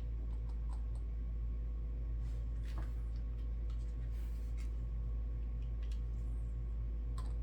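Steady low hum with a few faint small clicks and rubs as small plastic model-kit parts are handled and pressed together for gluing.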